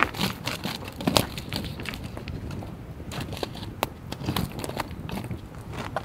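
Wood campfire crackling with irregular sharp pops, while a stick prods and shifts the burning logs, with a few louder knocks.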